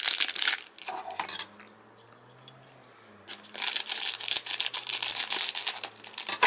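Hockey card packs being handled and opened: crinkling and rustling of plastic and foil wrappers with small clicks. It pauses for about two seconds and picks up again in a dense stretch about three seconds in.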